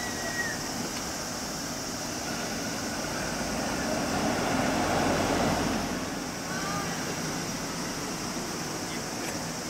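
Road traffic: cars and vans passing on a street, one vehicle passing close and loudest about four to six seconds in.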